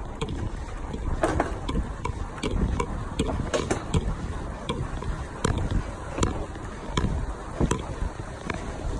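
Electric bicycle ridden over stone paving slabs: a steady low rumble of wind and tyre noise, with sharp irregular knocks and rattles from the bike, about one or two a second.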